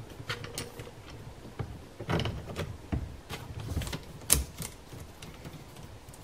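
The 3/8-inch saw chain of a DEDRA DED8701 electric chainsaw being fitted and pulled taut by hand on the bar and drive sprocket: scattered metallic clicks and rattles of the chain links, with the sharpest click about four seconds in.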